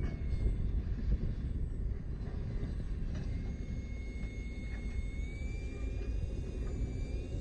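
Thin, high whine of a radio-controlled F-22 Raptor model jet's electric motor at low throttle as it taxis on grass, rising slightly in pitch after about five seconds, over a steady low rumble.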